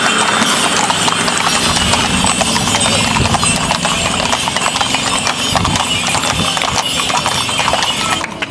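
Hooves of carriage horses clip-clopping on an asphalt road, the hoofbeats of several teams overlapping in a dense, irregular clatter. The sound cuts off sharply near the end.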